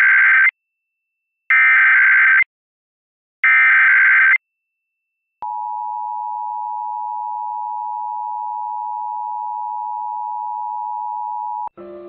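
Emergency Alert System Required Monthly Test tones: three data bursts of about a second each, the first already under way, each a harsh high buzz. After a short pause comes the steady two-tone EAS attention signal, held about six seconds and cut off just before the test announcement.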